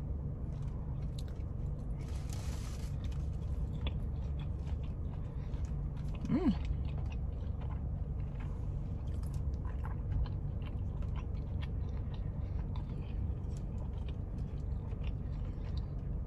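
Close-up mouth sounds of a person chewing a bite of sauced chicken wing, with many small wet clicks. A steady low hum runs underneath.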